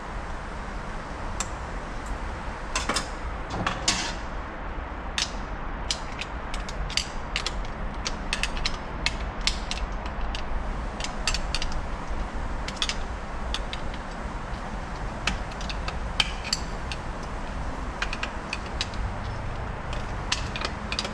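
Irregular metal clicks and scrapes from a screwdriver prying at a snap ring and clutch plates inside a 62TE transmission case, over a steady low hum.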